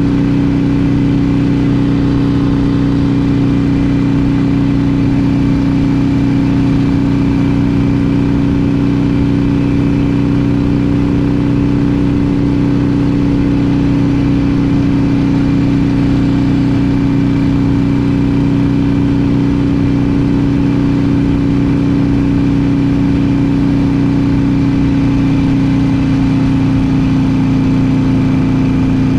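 2020 Harley-Davidson Iron 883 Sportster's air-cooled V-twin, breathing through a Vance & Hines Short Shot slip-on exhaust, cruising at steady throttle with an unchanging pitch.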